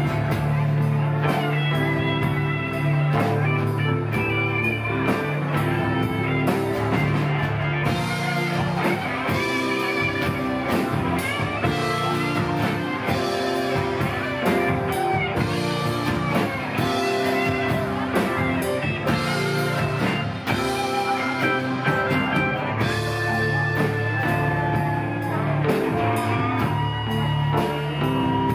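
Live rock band playing at a steady beat, with guitar to the fore over sustained bass notes and drums.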